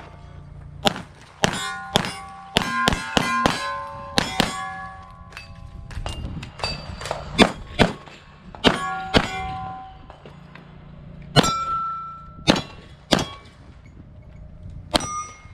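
Pistol shots fired in quick strings at steel targets, each shot followed by the ring of a struck steel plate. After a pause of about a second and a half, a few more shots and rings come near the end.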